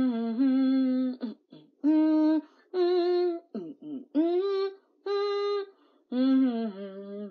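A woman singing a cappella: a string of held, wordless vocal notes in short phrases with brief breaks between them.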